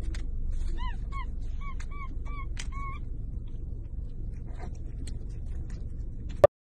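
Capuchin monkey giving a quick series of short, high squeaky chirps, with light crackles of a clear plastic food lid being handled. A steady low hum runs underneath.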